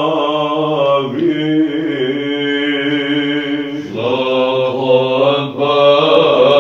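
Male choir of Orthodox monks singing Byzantine chant in Arabic in the fifth tone (plagal first mode). The melody moves in phrases over a steady, low held drone, the ison.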